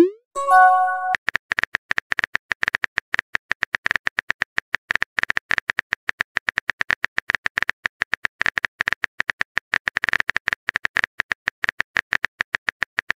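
Texting-app keyboard sound effect: rapid, even key clicks, several a second, as a message is typed out. At the start, a quick rising swoosh and a short chime as a message is sent.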